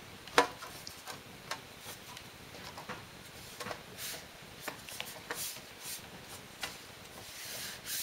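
Hands rubbing and pressing the aluminium bottom cover of a MacBook Pro back into place, with scattered light clicks and taps as the panel is seated.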